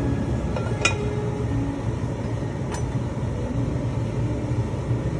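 Steady low rumble of a large stainless pot of water at a rolling boil as fresh spätzle drop into it, with two light metal clinks, about one and three seconds in.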